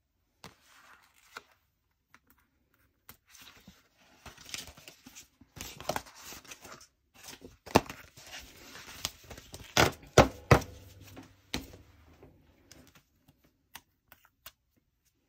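Glossy alphabet sticker sheets being handled and flipped through: paper rustling and crinkling, with a few sharp taps and clicks.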